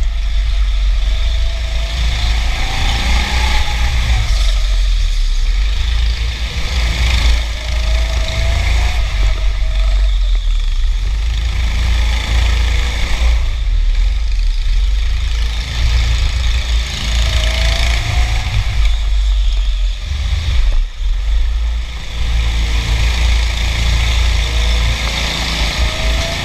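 Go-kart heard from a camera mounted on the kart while lapping: a loud low rumble of vibration, and over it a motor note that rises in pitch every few seconds as the kart accelerates.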